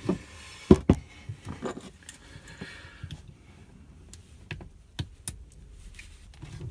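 Scattered clicks and knocks of hands working a hot, softened hose onto a plastic push-fit plumbing adapter, with one sharp knock just under a second in.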